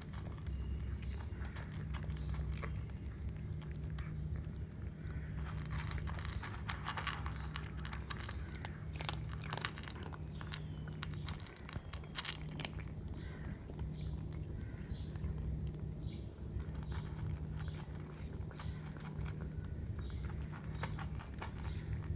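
A cat eating: many quick crunches and chewing sounds, thickest around the middle, over a steady low hum.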